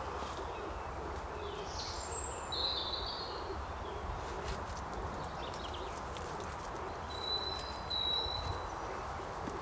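Woodland birds calling over a steady outdoor rush: a low call repeating throughout, with short high chirps about two and a half seconds in and again near the end.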